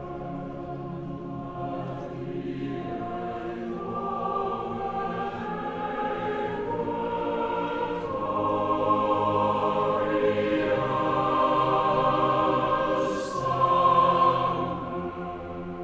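Large mixed choir singing slow, held chords that swell to a loud climax near the end, with a brief hiss there, then fade.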